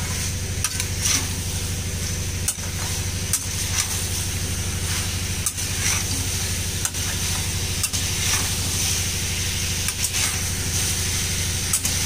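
Marinated chicken frying and sizzling in oil with onions, capsicum and tomato, while a spatula stirs and knocks against the pan every second or so. A steady low hum runs underneath.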